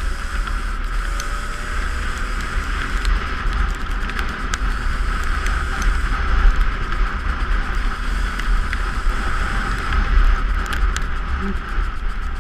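Two-stroke dirt bike engine running steadily during an off-road ride, under a heavy low rumble of wind buffeting the helmet-mounted camera's microphone, with scattered small clicks and knocks.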